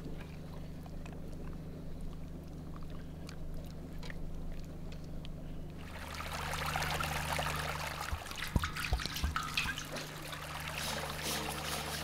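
Water trickling, over a steady low hum; the trickle grows louder about halfway through, and a few sharp knocks come near the two-thirds mark.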